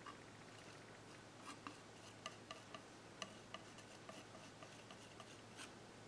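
Faint, irregular small ticks and taps of a metal palette knife working oil paint on a canvas, over a faint steady low hum.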